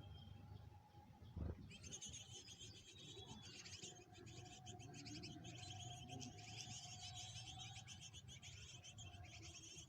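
Faint, rapid, high-pitched chirping of small birds, starting about two seconds in and going on steadily. A single low thump about a second and a half in is the loudest moment.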